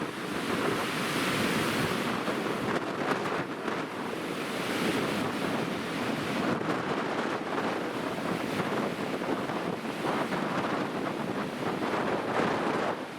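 Heavy storm surf crashing, with strong wind gusting across the microphone; the rush of noise rises and falls without a break.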